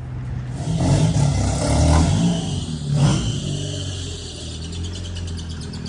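A car engine revving up and down, with three surges about a second apart, then settling to a steadier run.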